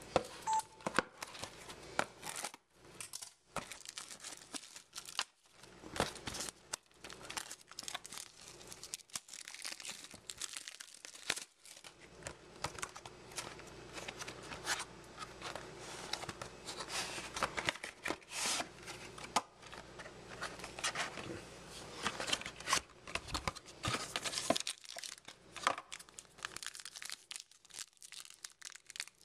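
Plastic wrapping on a box of trading cards being torn open and crinkled by hand, with irregular rips and crackles.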